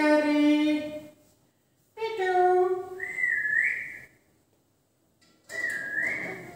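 Indian ringneck parakeet making short speech-like calls and whistling. Its whistle rises about three seconds in, and again, dipping first and then rising, near the end.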